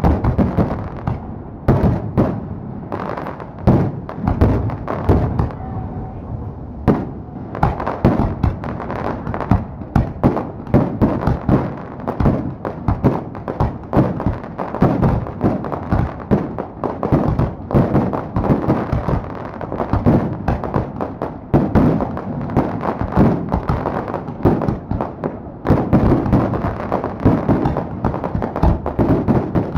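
Aerial fireworks display: shells bursting in a dense barrage of loud bangs, many per second and overlapping, with hardly a pause.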